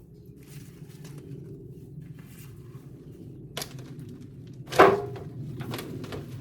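Dry loofah gourds being handled during harvest: a small knock, then a sharp hollow thunk just before five seconds in, then a softer knock, over a steady low hum.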